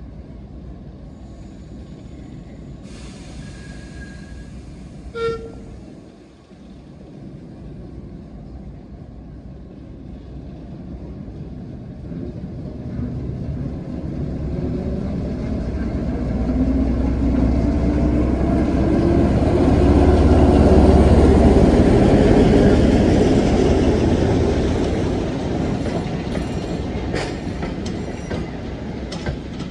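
Two diesel shunters, a BR Class 11 leading a Class 08, departing. A single short horn toot comes about five seconds in. Then the engines' low running note builds and rises in pitch as they pull away and pass, loudest about two-thirds of the way through, and wheels click over rail joints as the brake vans roll by near the end.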